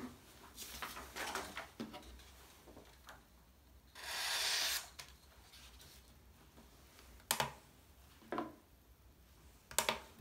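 Tabletop handling of a kitchen knife and a digital scale: light scratching at first, one short swish about four seconds in, then three sharp clicks and taps.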